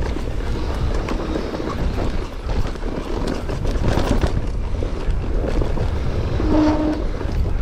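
Mountain bike descending loose, rocky singletrack: tyres rolling and skidding over dirt and rock while the bike rattles and clatters, with a constant low rumble of wind over the microphone.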